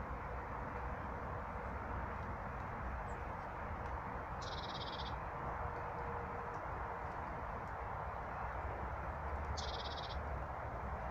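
A bird gives two short, harsh rattling calls about five seconds apart, over a steady background rush.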